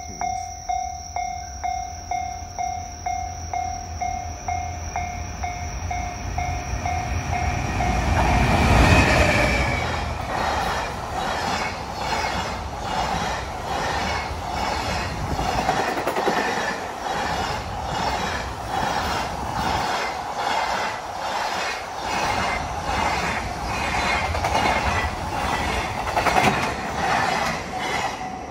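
Japanese level-crossing bell ringing in a steady repeating ding, then a long freight train arrives, loudest as the locomotive passes about nine seconds in. Its wagons follow in a steady rhythmic clickety-clack of wheels over the rail joints, drowning out the bell.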